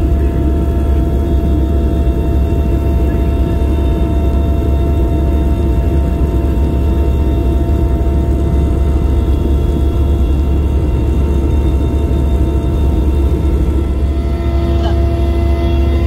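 Helicopter cabin noise heard from inside in flight: a loud, steady engine and rotor drone with a constant turbine whine, one tone strengthening slightly near the end.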